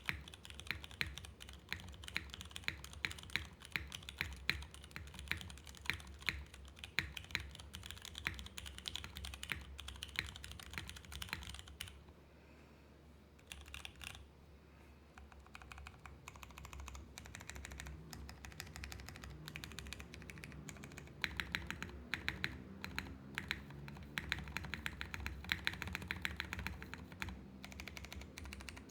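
Typing on a mechanical keyboard with lubed Cherry MX Clear switches on an aluminium plate under CRP keycaps: a steady stream of rapid key clacks, pausing for a few seconds about halfway through before it picks up again.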